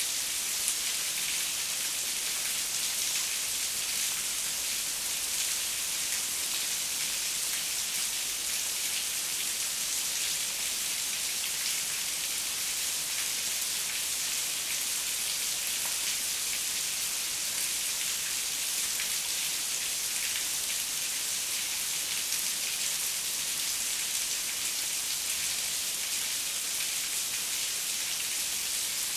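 Steady heavy rain: an even, unbroken hiss of falling drops, strongest in the high range, with a fine patter of individual drops throughout.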